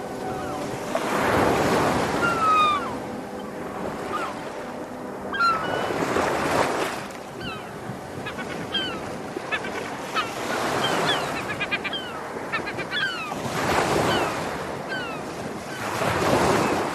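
Sea waves washing ashore in slow swells every few seconds, with seagulls giving many short, high, falling cries over them.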